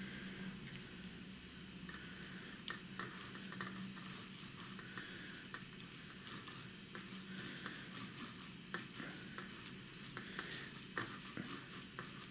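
Whitefish roe rubbed by hand through a mesh screen into a steel bowl: a faint wet squishing with many small clicks as the eggs are pushed through and stripped from their membrane.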